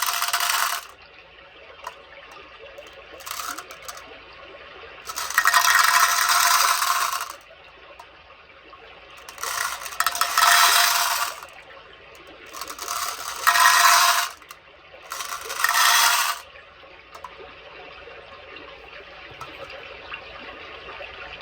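Loose beads being stirred and poured in bowls: a dense spray of tiny clicks in about six bursts of one to two seconds each, with quieter shuffling between them.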